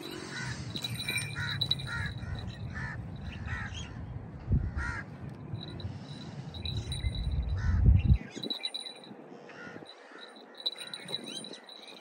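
A bird giving a rapid series of short, harsh calls, one after another about every half second, fading out after the middle. A low rumble, like wind on the microphone, runs under it and cuts off about eight seconds in.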